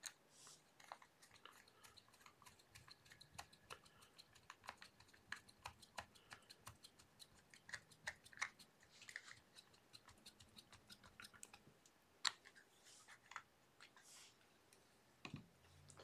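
Faint, scattered small clicks and taps of hands handling a plastic battery box while fitting its battery door, with one sharper click about twelve seconds in.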